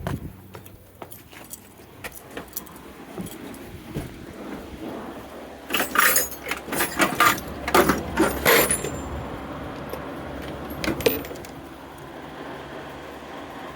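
Small metal parts and tools clinking and rattling as someone rummages through them by hand, with a busy burst of jangling in the middle and a few scattered clicks.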